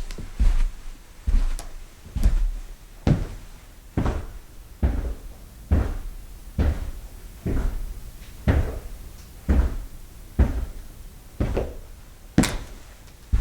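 Footsteps at a steady walking pace, about one step a second, each a dull low thud. One sharper, louder step comes near the end.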